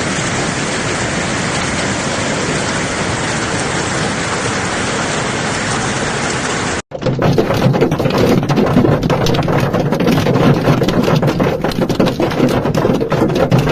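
Heavy hail falling: a dense, steady roar of hailstones, then, after a sudden cut about seven seconds in, a rapid clatter of many separate hailstone hits.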